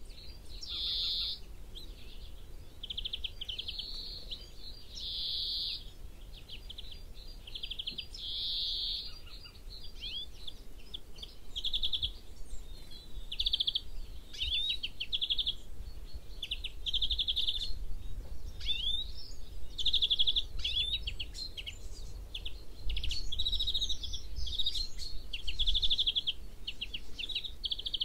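European greenfinch singing. It gives runs of trilling, pulsating notes at varying speeds and intensities, broken up by several long wheezy notes.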